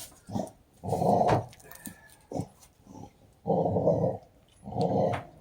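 A dog growling in short repeated bursts, three main growls of about half a second to a second each with brief gaps between them.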